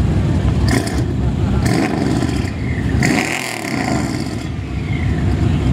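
Mercedes CLS 63 AMG's V8 running loud at the pitlane and being revved in blips, with a longer rev about three seconds in.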